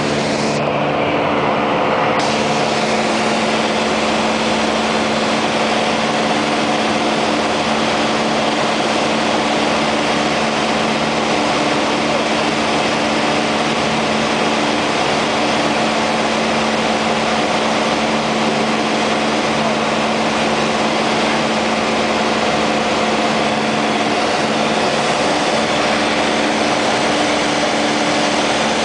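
Piper Cherokee Warrior II's four-cylinder Lycoming piston engine and propeller heard from inside the cabin, running at a steady, unchanging pitch in flight, with a constant rush of air noise.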